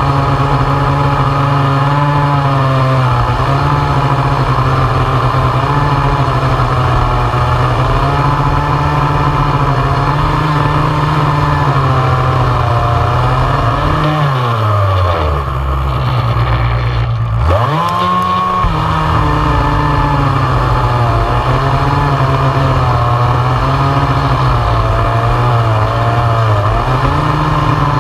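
Two-stroke chainsaw running at high revs while cutting through a large log, its pitch wavering as the chain bites. About halfway through, the engine falls away to a low idle for a second or two, then revs sharply back up into the cut.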